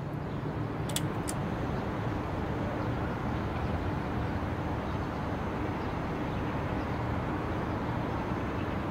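Steady outdoor background rumble of urban ambience with a faint hum, and two short clicks about a second in.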